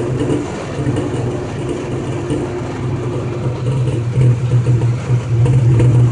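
Jeep Wrangler engine running with the knocking noise it is recorded for, a steady low hum that gets louder about two-thirds of the way in.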